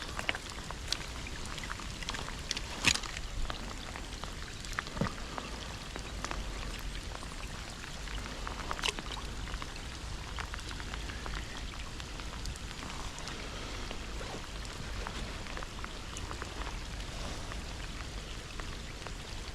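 Steady rain with many individual drops ticking close by, and one sharper tap about three seconds in.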